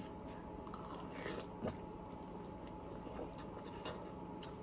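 A person eating ramen noodles: faint chewing and slurping, with a few small mouth clicks scattered through.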